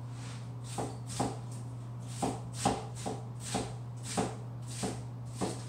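Knife shredding cabbage by hand on a cutting board: about ten crisp chops, roughly two a second, starting about a second in, over a steady low hum.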